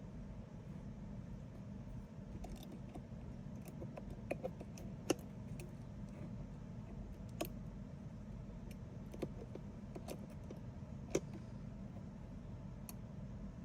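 Scattered small sharp clicks and taps, about half a dozen, over a steady low hum.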